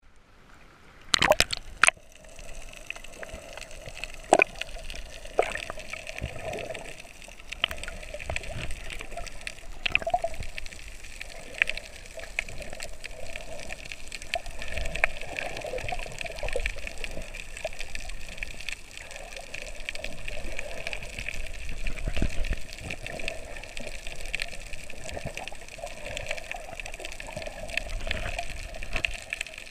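Water sloshing and bubbling around a camera held just under the sea surface while snorkeling, muffled and hollow, with scattered knocks and splashes; a louder splash about a second in.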